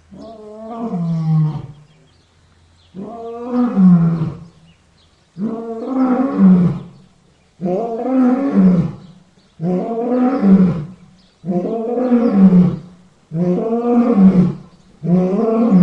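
A big cat roaring over and over: about eight long, pitched roars in a row, roughly one every two seconds, each swelling and then falling away.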